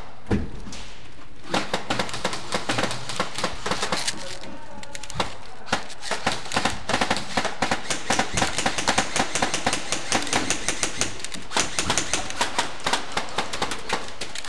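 Rapid, irregular clicking and snapping of airsoft gunfire and BBs striking surfaces, thickening about a second and a half in and continuing in quick, uneven volleys.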